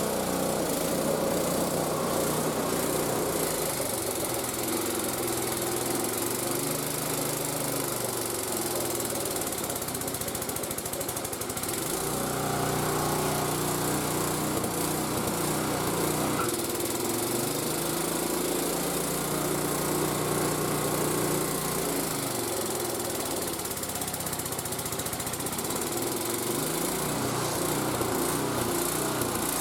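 Gasoline snowblower engine running hard, its pitch sagging and recovering several times as it is loaded by deep snow.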